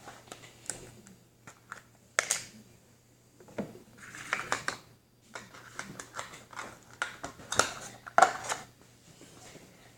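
Scattered clicks, scrapes and crinkles of a plastic juice bottle being twisted and handled as someone struggles to open its cap, loudest about two seconds in and again around eight seconds.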